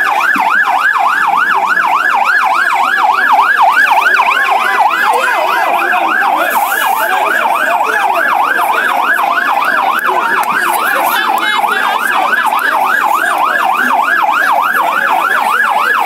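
Fire engine siren sounding a fast yelp, its pitch sweeping up and down about three times a second without a break.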